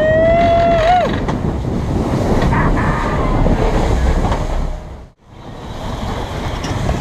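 Rushing wind and water of a boat running at sea, with wind buffeting the microphone. In the first second a single held, pitched call or tone rises slightly and breaks off, and about five seconds in the sound cuts out abruptly before the rush returns.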